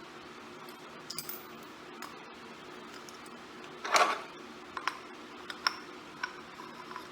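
Small metal parts and hand tools clinking while a MIG welder's wire-spool hub is taken apart: light clicks, one louder rattle about four seconds in, then a few sharp clicks.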